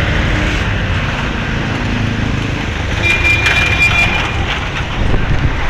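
Steady engine and road rumble from inside a moving passenger vehicle, with a brief thin high-pitched whine and a few clicks about three seconds in.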